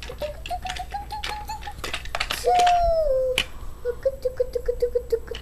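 Plastic toy train pieces clicking and clacking as a child handles them, with the child's high wordless vocal sounds: a rising hum, a falling cry, then a rapid pulsing note.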